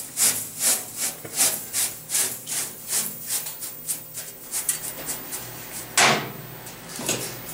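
A hand brush sweeping metal machining chips across the chip tray of a CNC mill, in brisk scraping strokes of about two a second. One louder knock comes about six seconds in.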